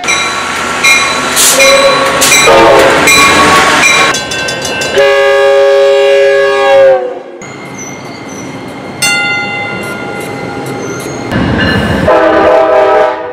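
Diesel passenger train locomotives sounding their multi-chime air horns in a run of separate blasts, with abrupt changes from one to the next. A long horn chord about five to seven seconds in drops in pitch at its end as the train passes, and the low rumble of a passing train comes in shortly before the end.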